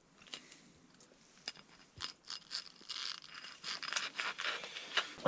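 Irregular crunching, scraping and clicking handling sounds, sparse at first and growing busier over the last few seconds.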